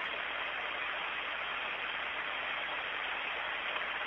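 Steady static hiss of an open radio communications channel, with no voices.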